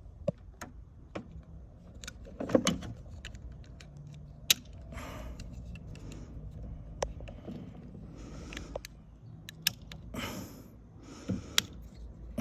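Screwdriver prying at the plastic tabs of a power door lock switch and its housing: scattered sharp plastic clicks with short bursts of scraping.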